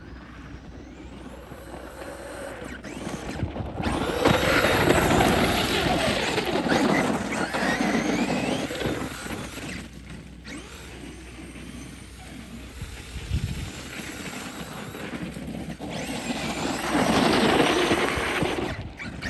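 Traxxas E-Revo 2.0 electric RC monster truck driving on icy snow, its motor whining up and down in pitch with the throttle while the tires scrabble over the icy crust. It is louder in two runs, about four seconds in and again near the end.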